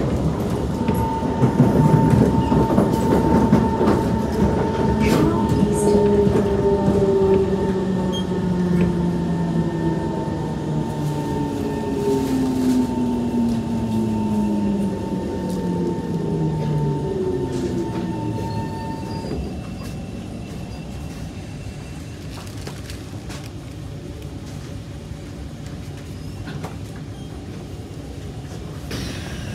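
Kawasaki–Nippon Sharyo C151 MRT train heard from inside the car as it brakes into a station: several traction motor tones fall steadily in pitch while a steady high whine holds. Both stop about nineteen seconds in as the train comes to a halt, leaving a quieter steady hum.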